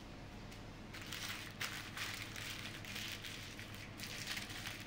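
Parchment paper crinkling and rustling as it is handled and rolled around a log of chocolate mixture, starting about a second in.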